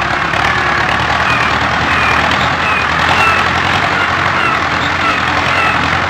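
A steady vehicle engine running, with a hiss over it and faint short high chirps about twice a second.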